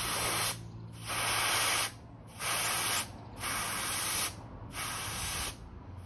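Air hissing out of a Honda SH150i scooter's front tyre valve in five short bursts, each under a second. The air is being let out in small bursts to bring the overinflated tyre down to about 30 psi.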